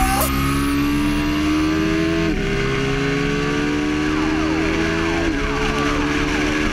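Motorcycle engine under hard acceleration, heard from on the bike: its pitch climbs steadily and drops briefly at two upshifts, about two and five seconds in, over a steady rush of wind and road noise.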